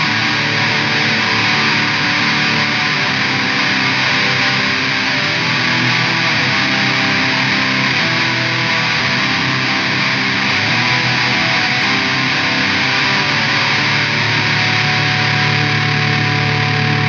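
LTD 213 Strat-style electric guitar played through a Line 6 POD HD500X modeler with a distorted tone, a continuous riff; about fourteen seconds in it settles onto a low chord that is held and rings on steadily.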